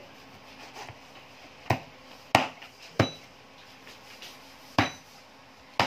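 A kitchen knife chopping fried chicken on a plastic cutting board: five sharp knocks of the blade striking the board, spaced irregularly.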